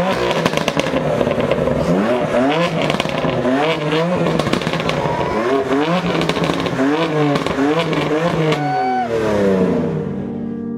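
Racing car engines revving hard, rising in pitch and dropping again over and over as they change gear, with sharp exhaust crackle. The sound fades away near the end.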